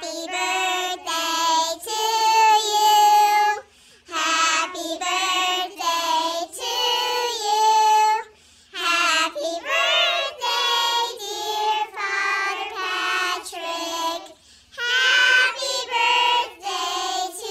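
A group of children singing together in unison, in sung phrases a few seconds long with short breaks between them.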